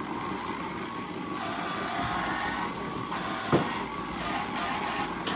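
Steady running noise of milking-parlour machinery while a handheld rotary teat-cleaning brush is in use, with a sharp click about three and a half seconds in.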